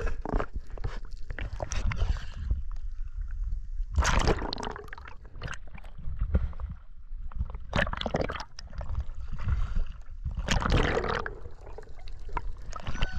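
Sea water sloshing and gurgling over a camera bobbing at the surface, dipping in and out of the water, with a splashy surge every two to three seconds over a steady low rumble.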